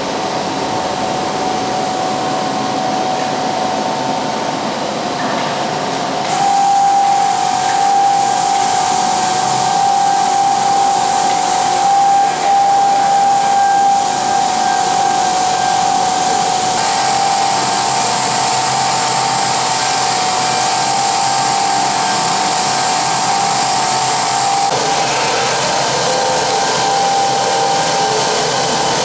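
CNC sanding and polishing machine working a metal tank bottom: a steady abrasive hiss with a motor whine. The sound changes abruptly about six seconds in and again near the end.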